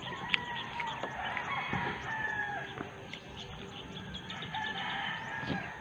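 Roosters crowing, one drawn-out crow after another.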